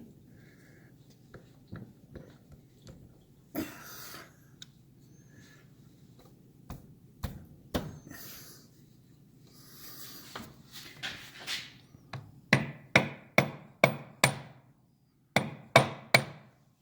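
Hammer tapping the Triumph Bonneville's clutch hub and damper assembly further onto its splined shaft: scattered light knocks and clinks of the parts being handled, then a quick run of five sharp taps about twelve seconds in and three more after a short pause.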